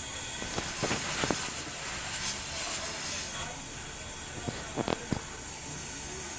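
Hands working with wires and small tools: a few short clicks and rustles, some about a second in and a cluster around five seconds, over a steady background hiss.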